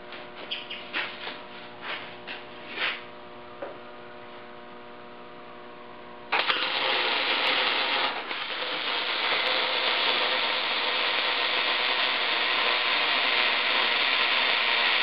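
About ten light knocks in the first few seconds over a steady electrical hum. Then, about six seconds in, arc welding on 2-inch steel pipe starts suddenly: a loud, steady hiss that keeps going as the bead is laid.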